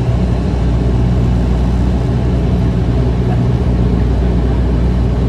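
Cabin drone of a Bombardier Dash 8 Q300's Pratt & Whitney PW123 turboprop and propeller, heard from a seat beside the propeller. It is a steady, loud drone with a deep hum made of a few even low tones.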